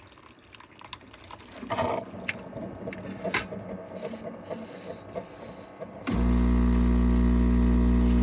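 A few knocks and clicks, then about six seconds in a Zulay Kitchen handheld battery milk frother switches on and runs with a loud, steady hum while mixing hot chocolate.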